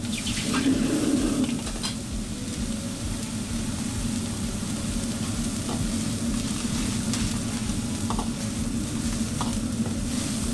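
Liquid ladled into a hot wok sizzles, most strongly in the first second or two, then the greens keep sizzling over the steady rush of the gas wok burner. The steel ladle clinks against the wok a few times as it stirs.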